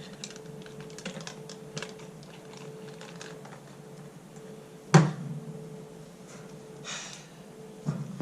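Buttons on a Timex alarm clock being pressed over and over, a run of small plastic clicks as the salt-water-damaged clock fails to respond, with one louder knock about five seconds in.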